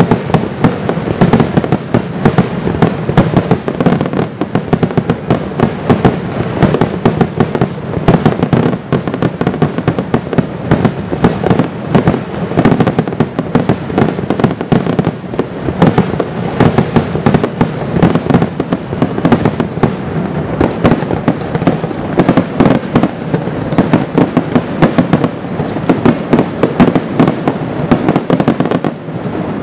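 Fireworks barrage: aerial shells bursting in rapid, continuous succession, the explosions overlapping many times a second.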